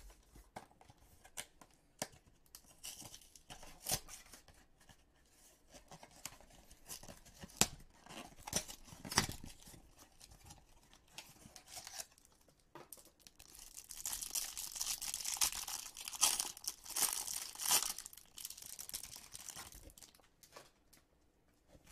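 Baseball-card hanger box being opened: scattered clicks and taps of cardboard, then several seconds of tearing and crinkling of the wrapper in the last third.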